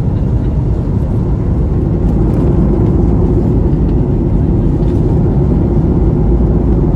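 Airliner cabin noise: a steady low rumble of the jet engines and rushing airflow heard from inside the passenger cabin, with a faint steady hum.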